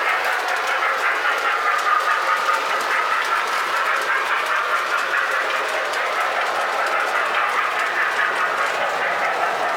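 Toy electric trains running on three-rail track: a steady motor whir with wheels clicking over the rail joints in a quick, even rhythm.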